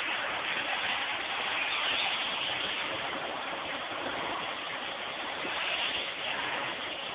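Household vacuum cleaner running steadily, a dense hiss that rises and falls a little in level.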